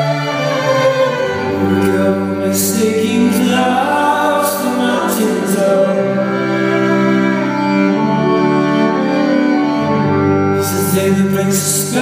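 Live band playing an instrumental passage led by bowed violin over sustained low bass notes, with a few brief percussive hits.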